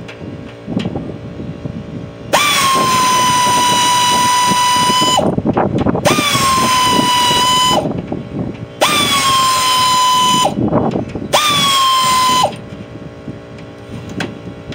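A power tool runs in four bursts of a few seconds each, with short gaps between them. Each burst is a steady high whine that dips slightly just after it starts and stops abruptly.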